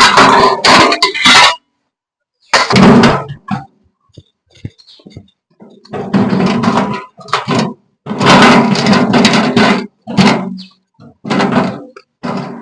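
Goats bleating loudly, about eight harsh, pitched calls of varying length, one after another with short pauses between.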